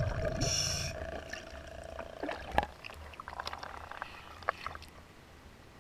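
Underwater noise picked up by a diver's camera. A low rumble and a brief hiss of bubbles fade within the first second or two, leaving faint scattered clicks and ticks.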